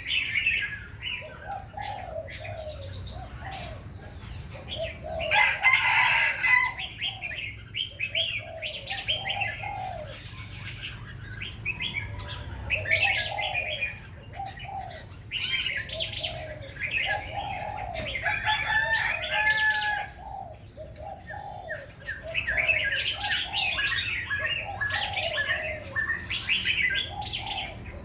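Several birds singing, with short repeated chirps and lower arching calls overlapping throughout, and a brief rustling burst about six seconds in.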